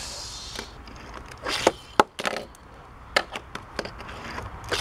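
Hot Wheels die-cast toy cars being handled on orange plastic track: a brief sliding hiss at the start, then a scattering of short clicks and knocks as the cars are picked up and set down.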